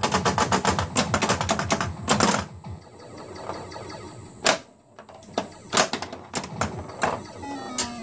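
Bally Eight Ball Deluxe pinball machine clattering with a rapid run of mechanical clicks for about two and a half seconds, then scattered single clicks. Near the end comes a falling electronic tone sequence from its sound board.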